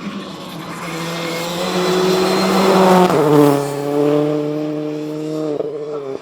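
Rally car passing at speed with its engine at high revs. It grows louder to a peak about three seconds in, the engine note dropping in pitch as it goes by, then fades.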